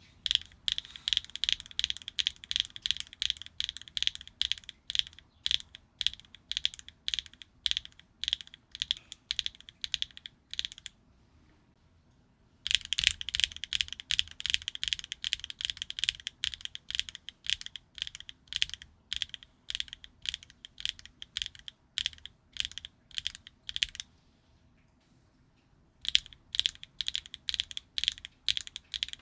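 HMX linear mechanical keyboard switches pressed and released in rapid succession, making a crisp, high-pitched clacky sound. The clacking comes in three runs, stopping for a second or two about eleven seconds in and again near twenty-four seconds, as one switch gives way to the next in a comparison.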